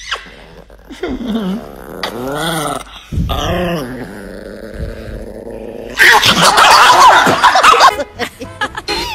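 Small white chihuahua growling, a wavering pitched grumble that rises and falls. About six seconds in comes a louder, harsher burst of noise that lasts about two seconds.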